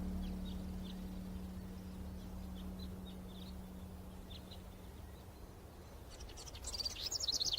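Small birds chirping in short, high, scattered chirps, rising near the end into a louder, rapid trill. A low held musical note fades out over the first couple of seconds.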